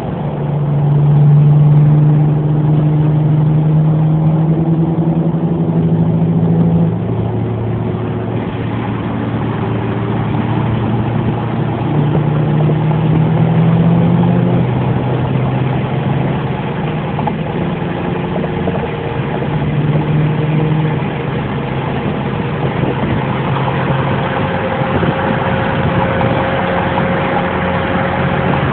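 Several car engines running together, mostly at steady speeds. Their pitches step up and down now and then as single engines are held at higher revs for a few seconds, then drop back.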